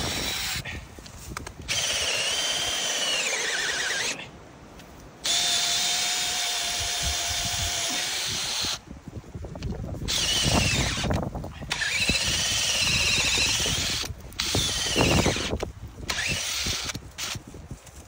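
Power drill running in several bursts of a few seconds each, with short pauses between them; its high motor whine dips and rises in pitch.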